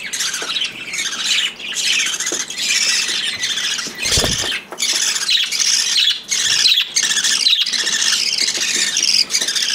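Budgerigar chicks giving harsh, raspy begging squawks in quick succession, the food-begging calls of nestlings being fed by an adult budgie.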